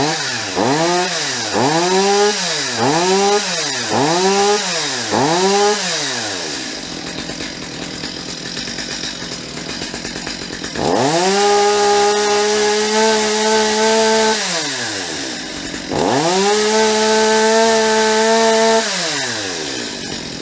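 Stihl MS250 two-stroke chainsaw running on its freshly cleaned carburetor. It is blipped six times in quick succession, idles, then is held at full throttle twice for about three seconds each and drops back to idle each time. It revs up and holds high revs cleanly: the carburetor is pretty close to correct before fine tuning.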